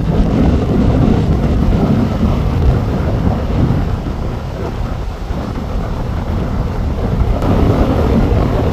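Strong wind buffeting the microphone, a loud low rush that eases a little midway and picks up again near the end.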